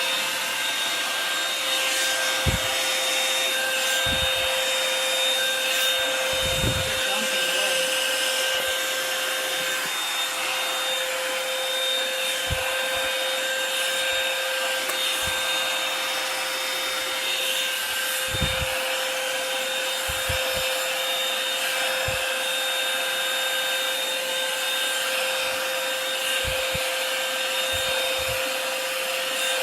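Revlon One-Step hair dryer brush running steadily on its high setting, a loud whirring blower with a constant hum, as it is brushed through hair. Occasional soft bumps and rubbing of the brush handling come through.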